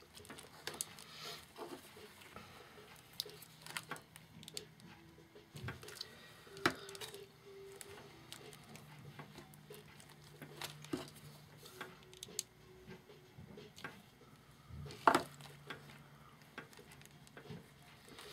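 Faint handling sounds of fabric and lace trim being pressed and smoothed by hand, with scattered light taps and clicks. Two sharper knocks stand out, one about six seconds in and one about fifteen seconds in.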